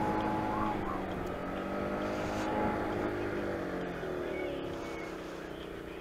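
Motor scooter's small engine running under way, its pitch shifting as the throttle changes.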